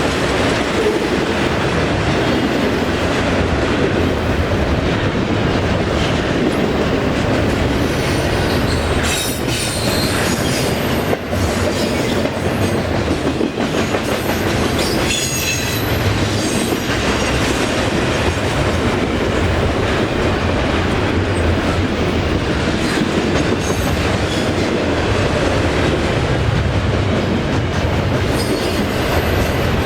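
A train rolling steadily past, its wheels running loudly and continuously on the rails, with brief high squeals now and then.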